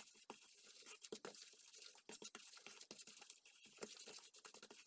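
Faint, irregular scraping and light clicks of a fork against a stainless steel bowl as egg is stirred into sugar.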